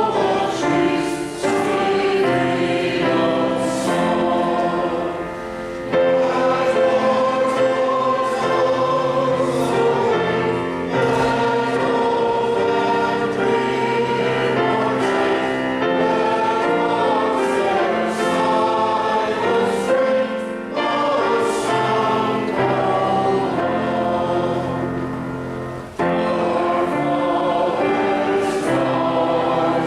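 A church congregation singing a hymn together, in phrases with short breaths between them.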